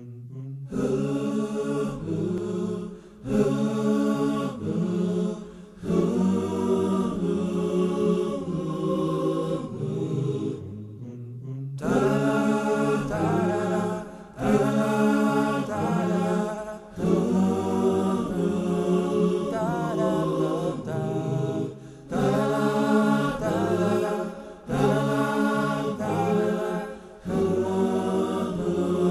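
Unaccompanied vocal chanting in held, ornamented phrases of two to three seconds each, over a low sustained drone, with a short break about eleven seconds in.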